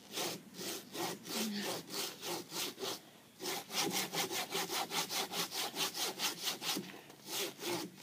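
Saw cutting into a hard palm tree trunk with quick back-and-forth strokes, about four a second, a short pause about three seconds in, then faster strokes of about five a second.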